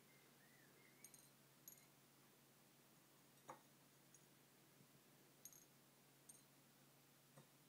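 Near silence over a faint steady hum, broken by several faint, sharp ticks: grains of rice dropped by hand into a ceramic bowl.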